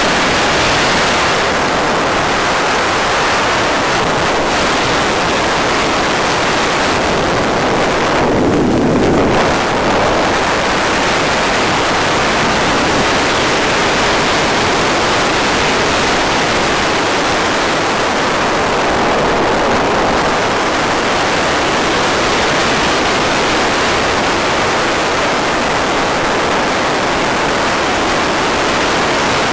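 Steady, loud rushing wind noise on the gliding FPV model plane's audio, with no motor running. About eight seconds in it briefly turns duller and lower before evening out again.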